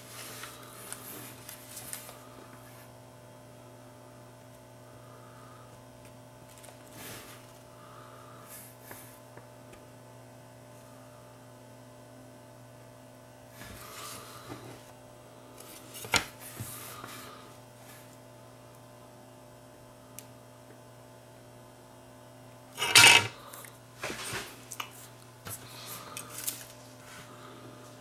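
Steady electrical hum on the workbench, with scattered light clicks and taps of small tools and parts as SMD components are placed and soldered. The loudest is a short sharp clatter about 23 seconds in, followed by a run of small taps.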